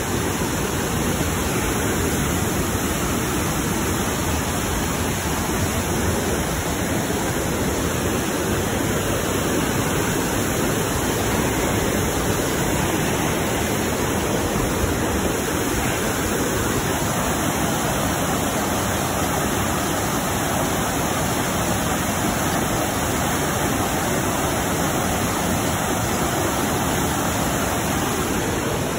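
Whitewater of a mountain stream rushing over rocks and boulders in a steady, unbroken roar.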